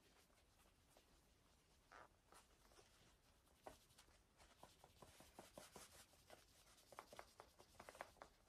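Faint, quick rubbing strokes of a shellac-charged cotton-rag pad over a curly walnut screwdriver handle, hand-applying a shellac finish. The strokes are scattered at first, then come in a quick run from about halfway through.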